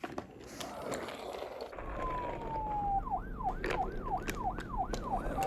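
Police car siren sound effect: one falling wail, then a fast up-and-down siren sweeping about two and a half times a second.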